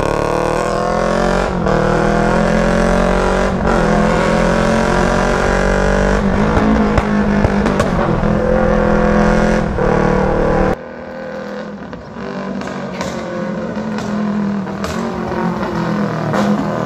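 A 250 cc sport motorcycle ridden with its exhaust removed: a loud, raspy engine note that climbs through the revs and drops at each gear change, with a few sharp pops. About eleven seconds in it cuts to the same bike heard from the roadside, farther off and quieter, still running and popping as it approaches.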